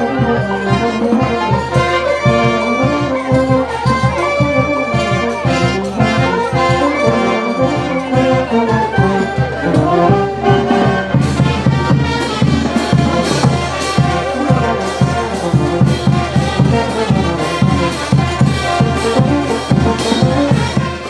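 A brass band playing a traditional festival tune, trumpets and trombones over a steady percussion beat that gets stronger about halfway through.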